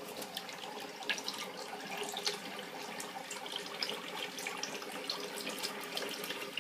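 Water running steadily from a tap, with small irregular splashes and drips as a pet bird bathes in the stream.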